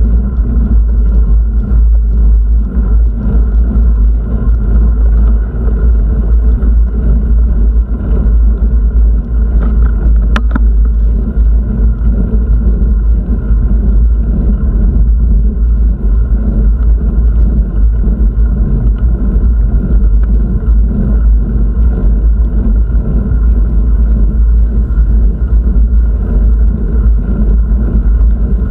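Loud, steady low rumble of travel noise, with one sharp click about ten seconds in.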